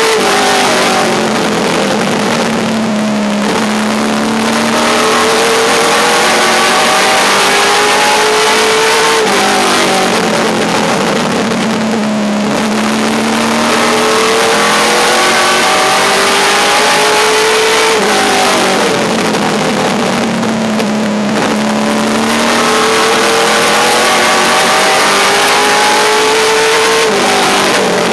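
Late model race car's V8 engine heard from inside the cockpit, pitch climbing along each straight, dropping sharply as the driver lifts for the turn and holding lower through it, three times over.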